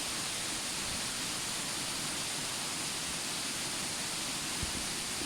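Waterfall rushing, a steady even hiss of falling water.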